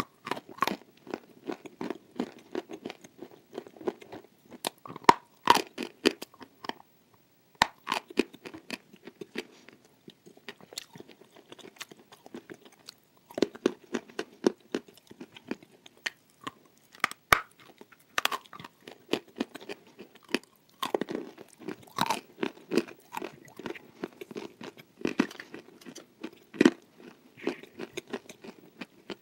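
A person chewing a hard, dry piece of edible clay with the mouth closed, crisp crunches and clicks in quick runs with short pauses between.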